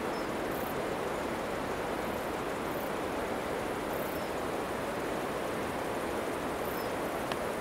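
Steady rushing of a mountain stream, an even wash of water noise that does not change.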